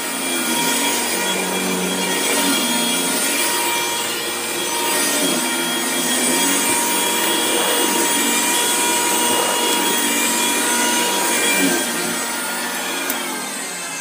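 Sanitaire upright vacuum cleaner running with a steady motor whine as it is pushed across the carpet, sucking up scraps of popped balloon rubber. It gets quieter in the last couple of seconds.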